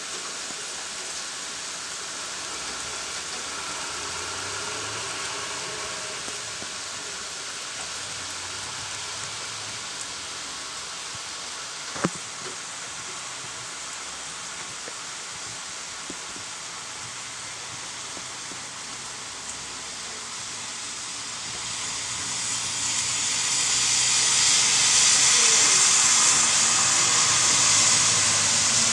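Steady hiss of rain with traffic noise on a wet road, swelling louder about three-quarters of the way through as tyre hiss on the wet asphalt builds. One sharp click near the middle.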